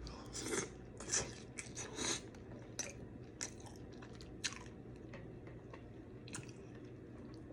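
Close-up mouth sounds of someone eating seafood: wet smacking and chewing in irregular short bursts, coming often for the first few seconds and then more sparsely.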